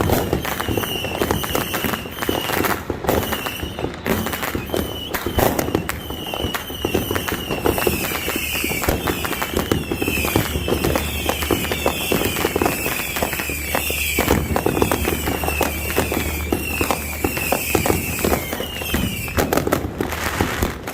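Dense, continuous crackling and banging of many fireworks and firecrackers going off at once, with a short high chirp repeating about twice a second over the barrage.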